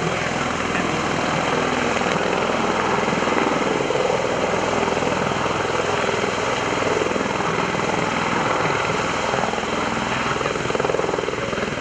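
MV-22 Osprey tiltrotor running its twin proprotors and turboshaft engines in helicopter mode, nacelles upright: a steady, loud rotor and turbine sound.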